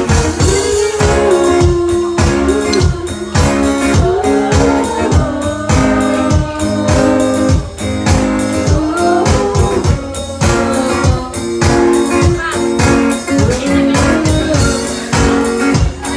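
Band music: guitars over a steady, regular beat, with a melody line that glides up and down.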